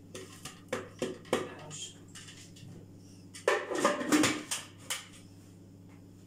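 Plastic food processor bowl being handled: a few light knocks as shredded kunafa dough is tapped out of it, then a louder clatter of plastic about three and a half seconds in as the bowl is put aside.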